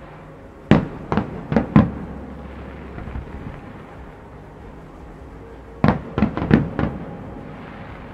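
Aerial firework shells bursting overhead. Four sharp bangs come in quick succession about a second in, followed by a low rumble, and then another volley of four or five bangs about six seconds in.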